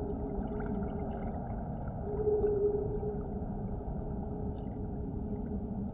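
A low sustained drone over a dull hiss, with a held note that swells about two seconds in and fades a second later.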